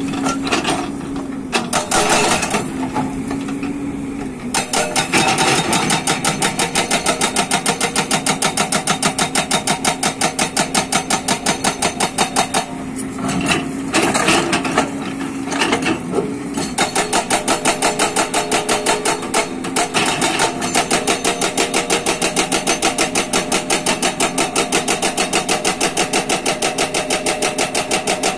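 Hydraulic rock breaker on a JCB tracked excavator hammering rock in a fast, even stream of blows, over the excavator's running engine. It hammers in short bursts for the first few seconds, then steadily from about four and a half seconds in, with two short breaks about halfway through.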